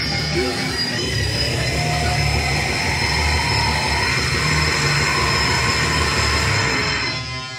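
Heavily distorted electric guitar riffing at high volume, low notes chugging in an uneven rhythm, with a harsh shouted vocal over it. The noise cuts off suddenly about seven seconds in.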